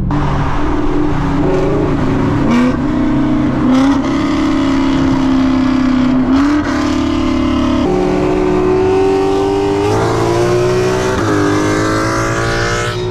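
Car engines at full throttle in a roll race, heard from inside one of the cars: the pitch climbs steadily and drops sharply with each of several upshifts.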